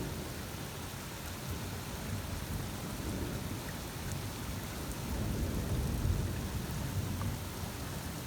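Steady heavy rain of a severe thunderstorm, with thunder rumbling low beneath it and swelling louder about five to six seconds in.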